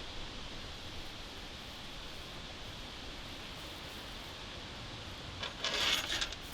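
Steady outdoor woodland ambience with a faint hiss, broken near the end by a short rustle about a second long.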